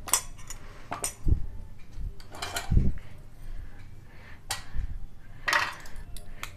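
Steel spoon clinking and scraping against a bowl while coarse-ground masala is spooned onto boiled amla pieces: several separate sharp clinks with short scrapes and a few dull thumps between them.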